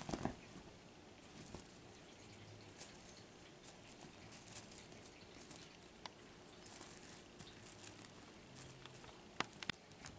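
Faint patter and rustle of a Bengal kitten pouncing and scrabbling on a bedspread after a feather wand toy. Scattered light taps run through it, with a cluster of them at the start and two sharper clicks near the end.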